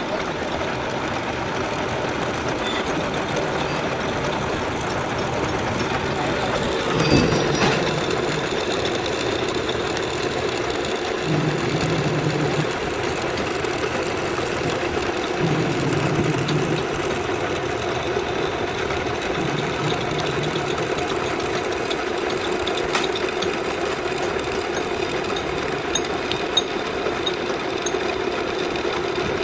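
Lathe running steadily: a constant mechanical hum with a clatter over it, and one louder knock about seven seconds in.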